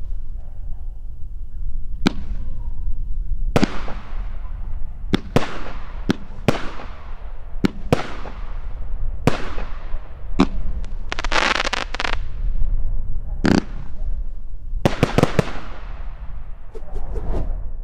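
A World Class Hillbilly Hero 200-gram firework cake firing its shots: sharp bangs of bursting shells and mines about every second, each with an echoing tail. A dense spell of crackling comes about eleven seconds in, and a quick cluster of bangs near the end.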